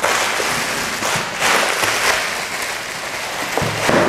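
Bubble-wrap plastic bag crinkling and rustling as a hard plastic case is pulled out of it, with a knock near the end as the case is set down on a wooden table.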